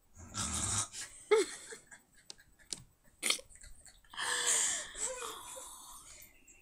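A girl's breathy, wheezing laughter close to the microphone, in several bursts, the longest about four seconds in. A few sharp clicks fall between the bursts.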